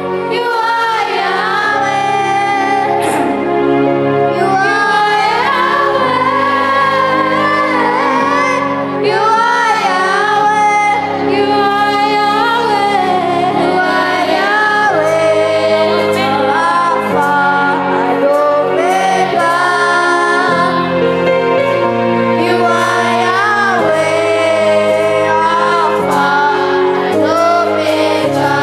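Music: a solo voice singing a melody over sustained instrumental accompaniment, continuous throughout.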